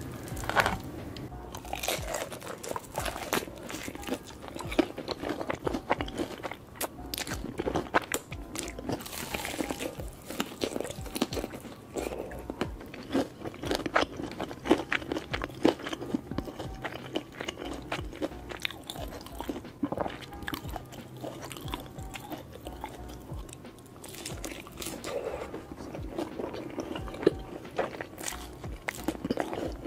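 Close-miked ASMR eating: crunchy bites and chewing of crispy fried chicken nuggets dipped in cheese sauce, a rapid, irregular run of crisp crunches.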